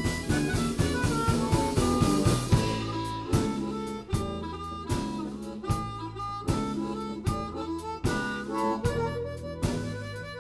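Live blues band playing an instrumental passage, with a harmonica played into a hand-held microphone leading over electric guitar, electric bass and a drum kit keeping a steady beat.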